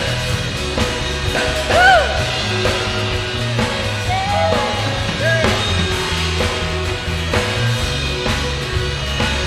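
Worship band playing an instrumental passage of a contemporary praise song, with steady bass and drums under sustained chords. A few short sliding melodic notes come in about two seconds in and again around four to five seconds in.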